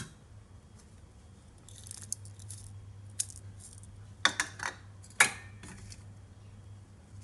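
Small sharp clicks and light rattling taps as sliced chillies are scattered over a dish in a bowl. They come in a few scattered groups, and the loudest clicks fall about four and five seconds in.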